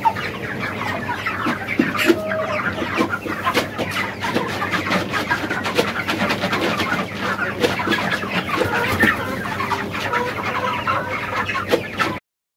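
A flock of white broiler chickens clucking and calling all at once, a dense, steady chatter of many overlapping calls that cuts off suddenly near the end.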